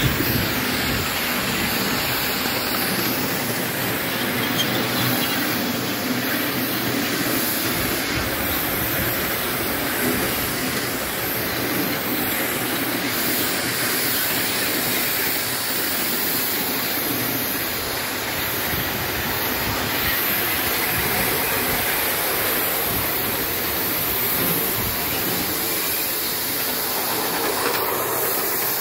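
5-inch gauge coal-fired live-steam model of a Britannia locomotive running on its track: a steady hiss of steam mixed with the running noise of the wheels on the rails, without distinct separate beats.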